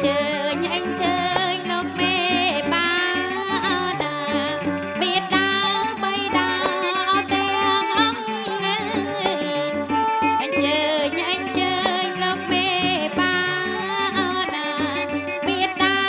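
Traditional Khmer wedding music, with a wavering, ornamented melody over a steady, rhythmic bass line.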